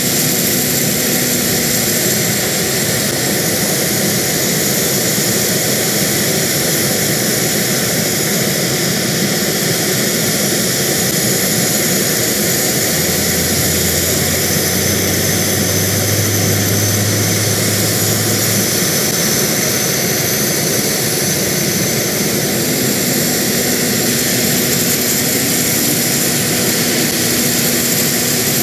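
JASDF UH-60J Black Hawk helicopter running on the ground: its twin turboshaft engines give a steady loud turbine whine over the noise of the turning rotors. A low hum joins in for about five seconds around the middle.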